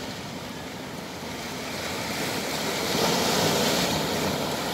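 Small sea waves washing in over rocks and a pebble beach; one wave surges up to its loudest about three seconds in, then draws back.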